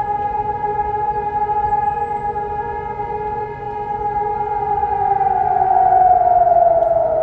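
Several electronic civil-defence sirens (Hörmann and Helin types) sounding a steady tone, the long all-clear signal. Their tones are held at fixed pitches, and about four to five seconds in the loudest one begins to slide down in pitch as it winds down.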